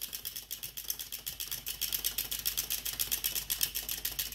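Wind-up chomping toy's clockwork running down: rapid, even clicking at about ten clicks a second that stops suddenly near the end as the spring unwinds.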